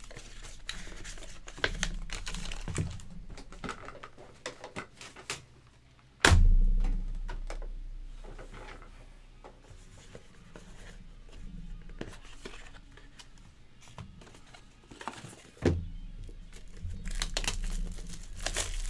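Plastic shrink-wrap on a trading-card hobby box being torn and crinkled by hand, with scattered crackles throughout and a denser burst near the end. A single loud thump about six seconds in and a smaller one later, as the box is handled on the table.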